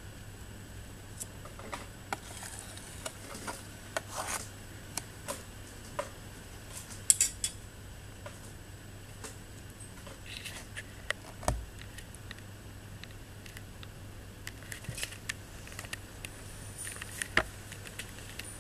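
Irregular sharp clicks and taps of an eyeless red-eared slider turtle snapping at food pellets and scrabbling against a shallow plastic tub, over a faint steady low hum.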